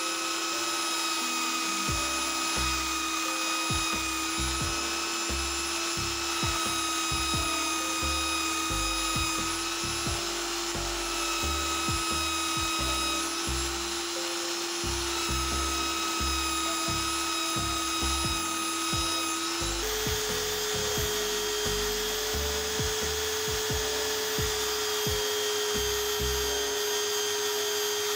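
Benchtop belt sander running with a steady motor whine while a steel axe edge is ground on a coarse 100-grit belt to form an apex. The whine steps up in pitch about two-thirds of the way through.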